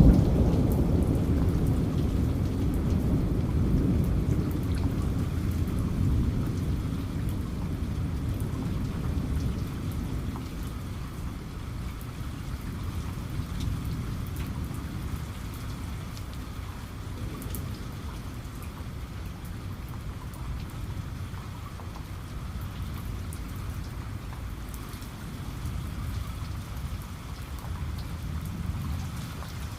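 Steady rain falling, with a low rumble of thunder that fades away over the first ten seconds or so; a fainter rumble swells again near the end.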